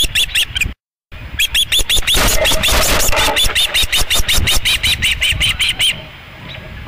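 Osprey calling close to the microphone: a fast, even series of short, high, piping chirps, about six a second, which stops about six seconds in. The sound cuts out completely for a moment just under a second in.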